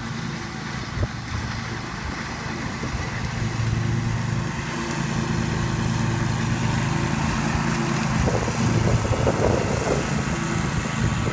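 Scag Tiger Cat II zero-turn mower running as it mows, a steady engine drone that grows louder about three seconds in.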